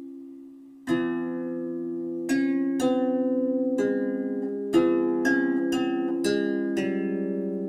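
Background music: a slow melody of single plucked-string notes, each struck sharply and left to ring and fade, the first coming in about a second in.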